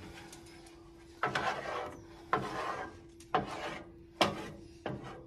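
Seasoning being shaken out of a container over the food in short rasping bursts, five of them about a second apart, over a steady low hum.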